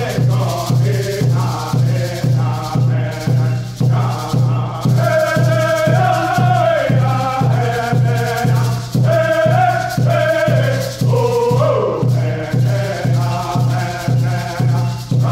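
A group of men singing a Native American song in unison over a steady drum beat of about two and a half strokes a second.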